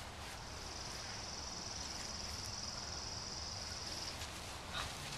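An insect trilling in one steady, high-pitched buzz that stops about four seconds in, over faint outdoor background noise.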